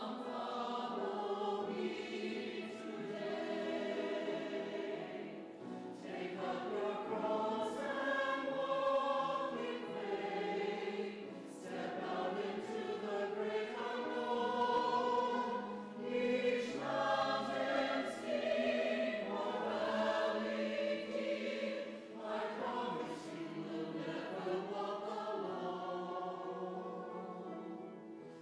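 A mixed church choir of men's and women's voices singing an anthem in parts, in phrases with short breaths between them.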